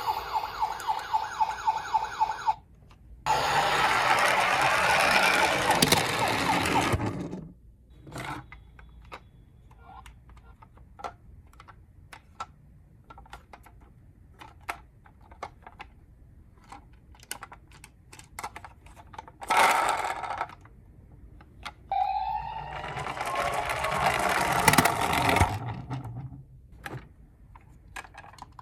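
Toy ambulance miniature cars sounding their electronic sirens, with gliding tones in places, between stretches of loud rattling noise. Many light plastic clicks and clacks come in the quieter middle stretch.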